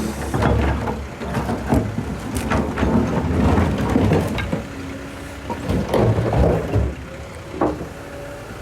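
Excavator running while it loads a dump truck: a low engine rumble under a clatter of knocks as bucket loads of material drop into the truck bed, busiest in the middle and easing off near the end.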